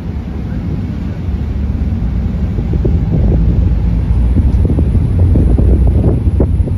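Wind buffeting the microphone aboard a moving ferry, over the steady low rumble of the ferry underway. It grows a little louder after about three seconds.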